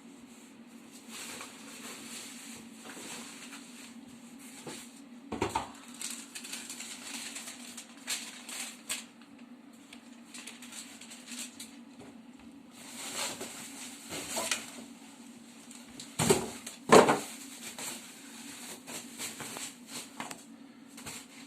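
Unboxing handling: plastic and packaging rustling with scattered clicks and knocks of parts being handled, the loudest knocks about three quarters of the way through, over a faint steady hum.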